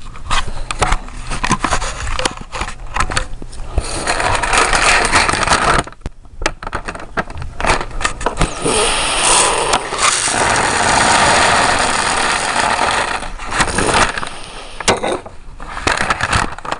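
Paper lunch bag and popcorn being handled: rustling and crinkling paper with clattering and sharp clicks. Denser stretches come about 4 s in and again from about 8 s to 14 s.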